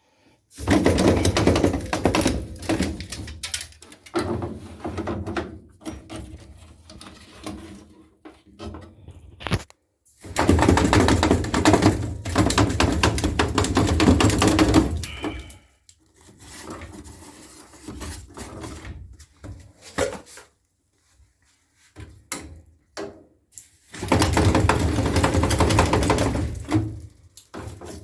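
Gas furnace making a loud, rapid clattering noise in bursts of several seconds, three times, with softer irregular knocks in between.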